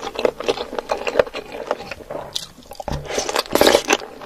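Close-miked eating of chili-sauced chicken feet: irregular wet chewing, smacking and crunchy clicks as the skin and cartilage are bitten and chewed, with a denser run of crunching a little past three seconds in.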